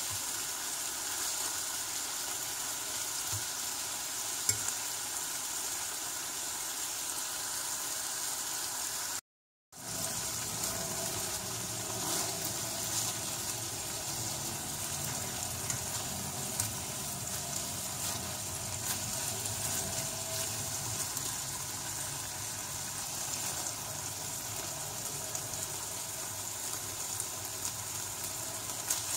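Longanisa sausages sizzling steadily as they fry in oil in a nonstick frying pan, with a few faint ticks. The sound cuts out completely for about half a second, roughly nine seconds in.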